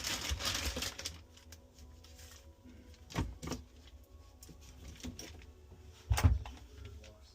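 Handling noises from repair work on a refrigerator: a short scraping rustle, then scattered clicks and knocks, the loudest a knock with a low thump about six seconds in.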